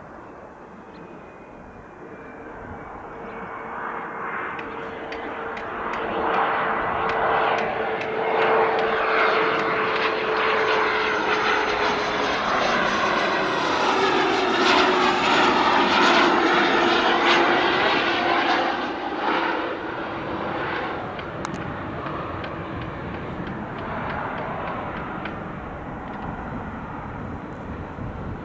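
Embraer Phenom 300 business jet landing, its two turbofan engines swelling to a loud pass close by. A whining tone drops in pitch as it goes past, then the sound fades away.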